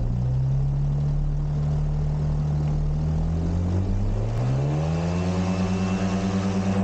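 Ultralight aircraft engine running steadily, then rising in pitch about four seconds in as the throttle opens for the takeoff roll, and holding at the higher speed.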